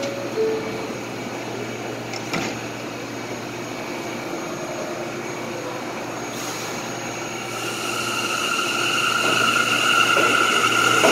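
R179 subway train at a station: a short two-note falling door chime, then the doors shut with a knock about two seconds in, over a steady hum from the stopped cars. From about seven seconds in the train pulls out, a steady electric whine from its propulsion growing louder as it gets under way.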